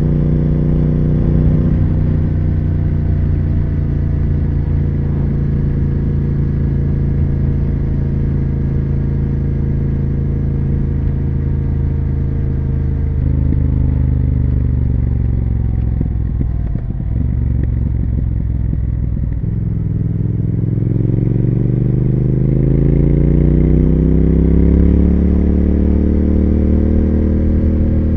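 Triumph Speed Twin 1200 parallel-twin motorcycle engine and exhaust under way. It runs steadily with its pitch slowly falling, eases off about halfway through, then pulls with the pitch rising steadily over the last several seconds as the bike accelerates.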